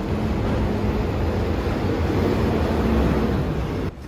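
A train running: a steady rumbling noise with a faint hum that cuts off suddenly near the end.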